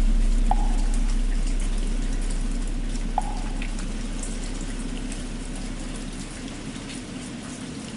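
The deep hum of a large struck temple bell fading slowly away over steady rain, with two faint light ticks in the first few seconds.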